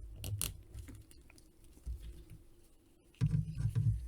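Small plastic clicks and rustles of a 6-inch action figure and its accessories being handled and fitted on, with a cluster of low knocks and handling bumps near the end.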